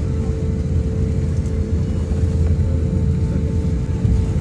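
Airliner cabin noise while taxiing: the jet engines and airflow make a steady low rumble, with a steady hum running through it.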